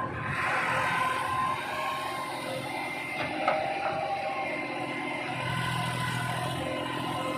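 Massey Ferguson 241 tractor backhoe loader's diesel engine running steadily under working load, with one short sharp knock about three and a half seconds in.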